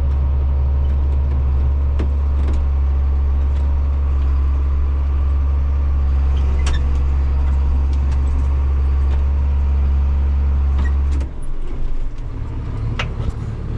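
Tractor engine pulling a grain cart, running with a steady low drone and a few light clicks and rattles. About eleven seconds in the drone drops off suddenly and the engine note turns rougher and lighter.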